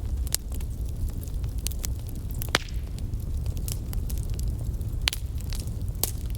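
Wood fire in a fireplace crackling, with irregular sharp pops and snaps over a low steady rumble; the loudest pop comes about two and a half seconds in.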